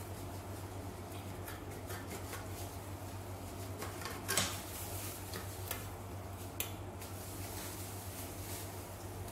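Light kitchen handling noises, short clicks and scrapes of utensils, the loudest about four and a half seconds in, over a steady low hum.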